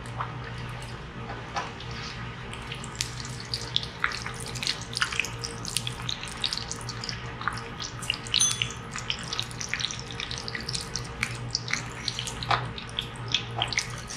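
Shelled ginkgo nuts deep-frying in hot oil: a steady sizzle with frequent sharp pops and crackles, growing busier after the first few seconds. The nuts are swelling in the heat, so their thin inner skins come away by themselves.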